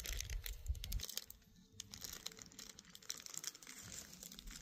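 Faint, irregular rustling and crunching with scattered sharp clicks, with a low rumble in the first second that then dies away.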